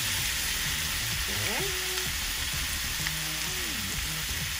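Chicken drumsticks and pineapple chunks sizzling steadily in a stainless steel skillet as they caramelize.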